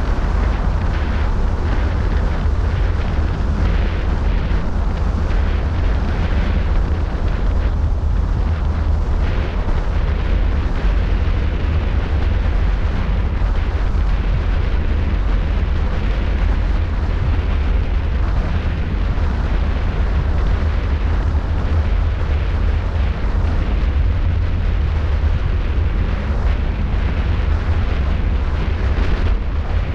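Wind buffeting the microphone of a camera mounted on a moving car's roof at road speed: a steady, heavy low rumble.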